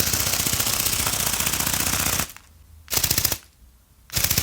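GoGo Bird remote-control flying bird's wing-flapping mechanism running, a rapid, even clatter. It stops about two seconds in, then starts again in two short bursts.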